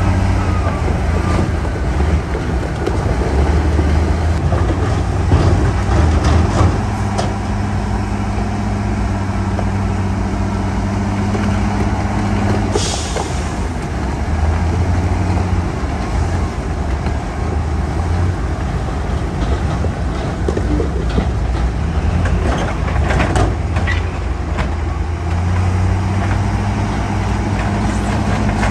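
Heavy diesel engines of dump trucks and a bulldozer running, their low note swelling and easing as the load changes. A short air-brake hiss comes about halfway through, and a few knocks follow later.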